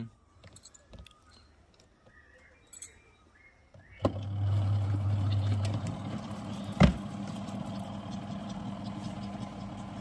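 The spin-dryer motor of a DMR MiniWash twin-tub portable washing machine starts suddenly about four seconds in and runs with a steady hum, louder for its first couple of seconds, spinning wet clothes to wring the water out. A single knock comes about three seconds after it starts.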